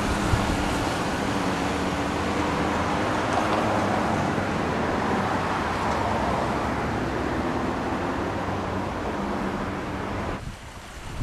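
Steady noise of motor traffic with a low engine hum, dropping away suddenly shortly before the end.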